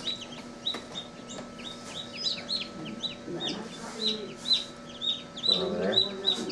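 Newly hatched chicken chicks peeping, a quick string of short, high, downward-sliding peeps, several a second, overlapping one another.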